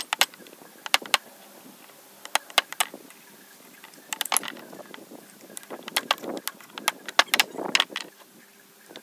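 Irregular sharp clicks and knocks in small clusters, with short rubbing noises between them, as a wooden block and the metal vise body are handled and knocked together.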